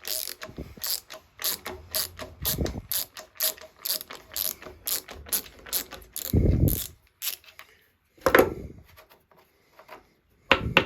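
Ratchet wrench clicking steadily, about three to four clicks a second, as a pipe tap is backed out of a freshly threaded hole; near the end the clicking stops and there are two louder knocks.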